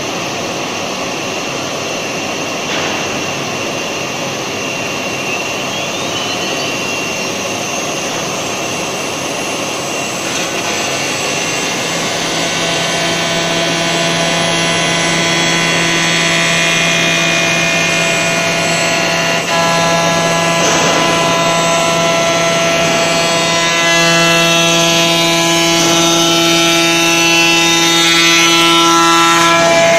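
Four-axis CNC router running as it machines a chair part, a steady, loud machine noise. About ten seconds in, a whine of several steady tones sets in and grows louder toward the end.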